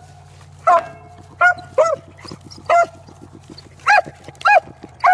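Beagles baying on a rabbit's track: about six short barks, irregularly spaced, each rising and falling in pitch.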